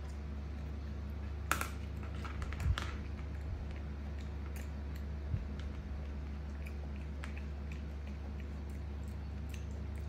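A macaque eating from a plastic plate: a metal spoon clicks and scrapes on the plate, louder in the first few seconds and then as faint scattered ticks. Under it runs the steady low hum of an electric fan.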